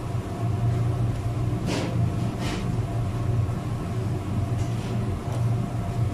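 Steady low mechanical hum, with a couple of short scraping sounds about two seconds in as goat tripe is worked on a plastic cutting board.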